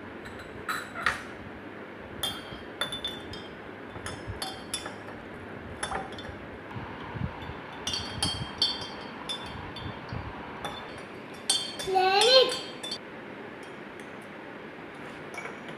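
A spoon stirring water in a small glass jar, clinking against the glass in irregular light taps. A child gives a short vocal sound about twelve seconds in.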